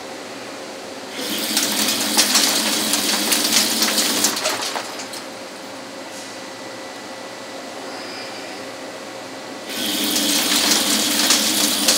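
Lathe taking a heavy high-feed turning cut in 1045 steel with a T-Feed carbide insert: two cutting passes, one from about one to five seconds in and one starting about ten seconds in, each a loud, dense noise with many fine clicks as the chips break. Between the passes the machine runs with a steady hum.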